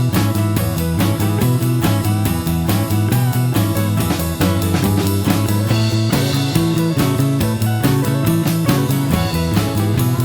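Instrumental rock music with a steady drum beat and guitar.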